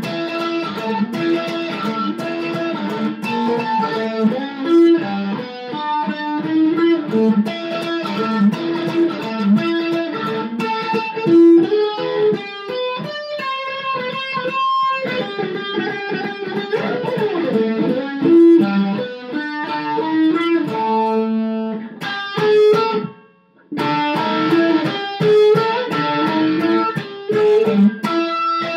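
Gibson EM-150 electric mandolin played through an amplifier, fast picked blues-rock riffs with string bends about halfway through. It stops for a moment late on, then comes back in.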